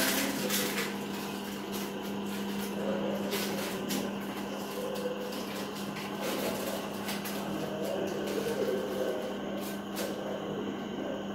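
Steady low electrical hum with scattered light taps and clicks from baked buns being handled and pulled apart on a plate.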